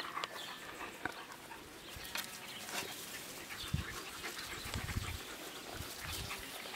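Siberian Husky puppies, five and a half weeks old, making faint little dog sounds as they play, with scattered small clicks and a run of soft low thumps in the second half.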